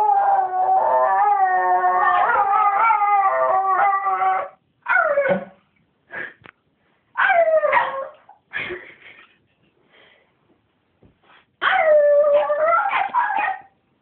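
Miniature schnauzer howling: one long, wavering howl for the first four and a half seconds, then several short yips and howls, a lull of about two seconds, and another long howl near the end. The owner hears this morning 'singing' as the dog's way of getting them out of bed.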